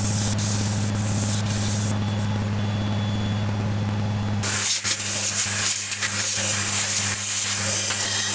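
Hand-held abrasive hissing against an ash burl hollow form spinning on a wood lathe, over the lathe's steady machine hum. The sanding hiss stops about two seconds in, leaving only the hum, and comes back louder about halfway through.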